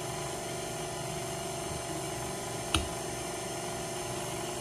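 KitchenAid Artisan stand mixer running steadily on low speed, its motor humming as the dough hook turns and mixes flour into the dough. One sharp click comes a little before the three-second mark.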